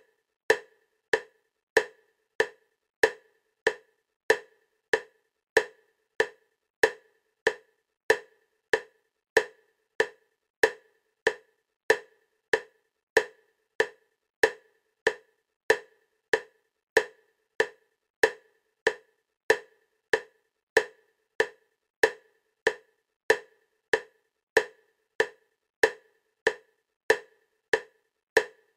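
EMDR bilateral-stimulation click track: short, identical clicks at an even 96 beats per minute, about one every 0.6 seconds, alternating from side to side between the ears.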